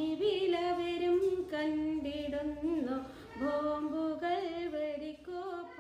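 A woman singing a Malayalam devotional song without accompaniment, holding notes and gliding between them, with a short breath about three seconds in.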